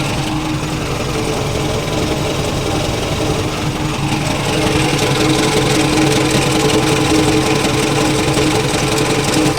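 Nissan NP300 pickup engine idling with the air conditioning on, carrying a strange noise that the owner traces to the clutch flywheel. The steady tones of the running engine weaken for the first few seconds and grow stronger again about four seconds in.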